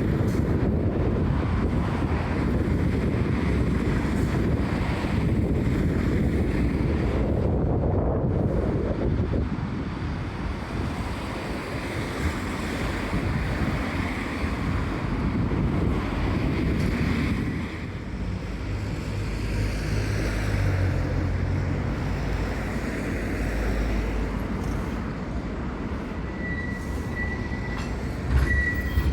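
Wind buffeting the microphone over the low rumble of a Blackpool tram running along the line, with a thin high squeal near the end.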